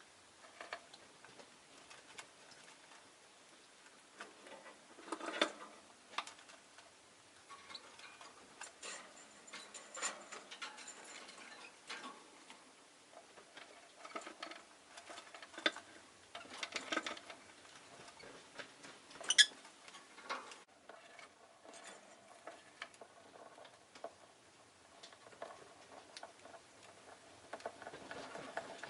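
Rosy-faced lovebird moving about, making small irregular taps, pecking clicks and scratchy rustles, with one sharper, louder sound about two-thirds of the way through.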